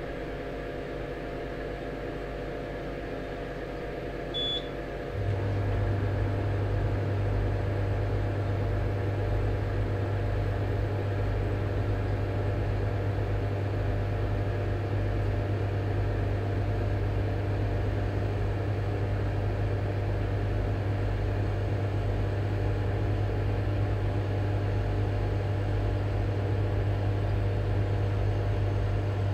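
PCR thermal cycler beeping once, then a steady low hum starting about a second later and running on as the machine begins its programmed heating and cooling run.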